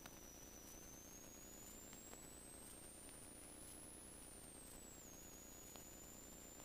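Near silence: a faint steady hiss with a thin, high whine that slowly rises and then falls back in pitch, and a few faint clicks.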